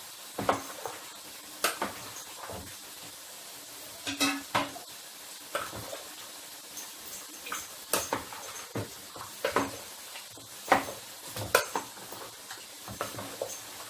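A spoon knocking and scraping in a plastic mixing bowl while food is stirred, in irregular clinks and taps, over a steady sizzle of potato chips frying in a pan.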